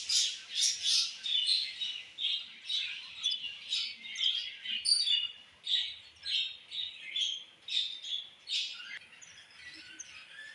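Budgerigars chirping: a quick run of short, high chirps, about three a second, growing quieter near the end.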